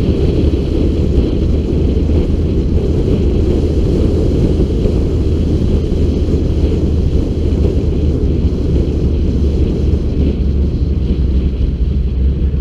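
Steady wind buffeting on a bonnet-mounted camera's microphone over a low rumble from the LS1-swapped Mazda RX-7 FD cruising at an even pace, with no revving.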